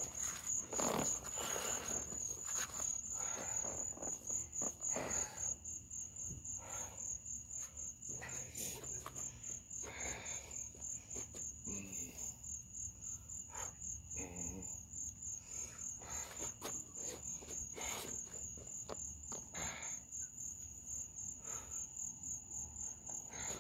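Crickets chirping in a continuous, evenly pulsed high trill, with scattered short soft scuffs and rustles of people moving close by.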